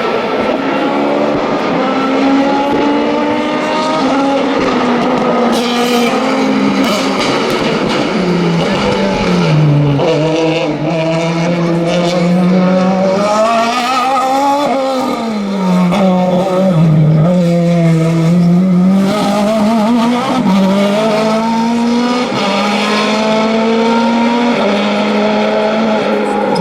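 Touring race car engine under hard acceleration on a hill climb, the revs climbing and dropping back again and again with the gear changes and braking.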